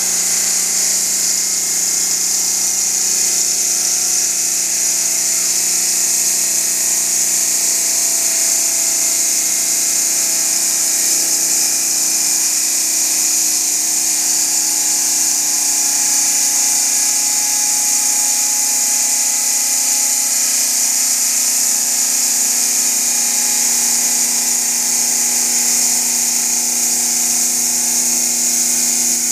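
2003 Marmo Elettromeccanica Dynamica monobloc bridge saw cutting a stone slab with its diamond blade. It makes a loud, steady high hiss with a running hum of tones beneath that drift slowly in pitch.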